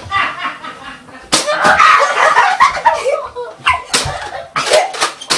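Nerf battle: a run of sharp slaps and clacks from foam-dart blasters and darts, over laughing and yelling. The clacks start about a second in and keep coming every half second or so toward the end.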